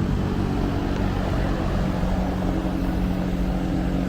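Electric fan running steadily: a low, even hum under a rush of moving air, the hum shifting slightly about two seconds in.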